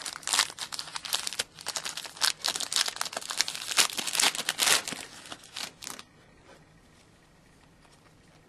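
Foil wrapper of a 2011-12 Panini Certified hockey card pack being torn open and crinkled by hand, a dense run of crackles and rips that stops about six seconds in.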